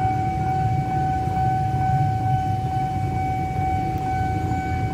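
Railway level-crossing warning alarm sounding one steady, unbroken electronic tone, over a steady low rumble.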